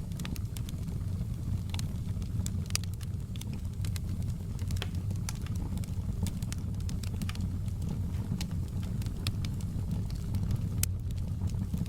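Wood fire burning in a fireplace, a steady low rumble of flames under frequent sharp crackles and pops at irregular intervals.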